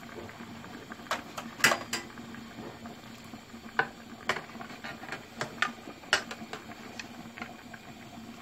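A wooden spoon knocks and scrapes against a large aluminium cooking pot as whole chickens are lifted and turned in their sauce. There are about a dozen sharp clacks scattered through, the loudest about one and a half seconds in, over a low steady hum.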